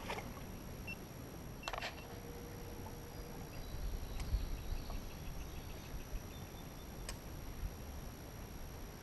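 A few sharp clicks, one near the start and another about two seconds in, a short run of faint rapid ticks in the middle, and low rumble of handling or wind.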